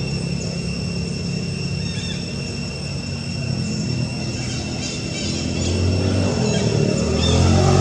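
A motor vehicle's engine running, getting louder over the last two or three seconds, with a steady high-pitched whine and faint chirps above it.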